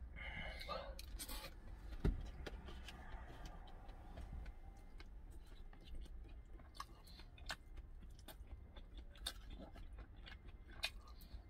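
Metal fork clicking and scraping irregularly against a plastic rice tub and then a tuna can, with quiet chewing, over a steady low hum. A single dull thump about two seconds in is the loudest sound.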